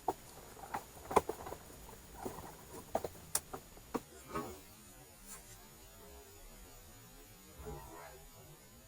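A run of light clicks and knocks, about a dozen in the first four seconds, as of small objects or tools being handled.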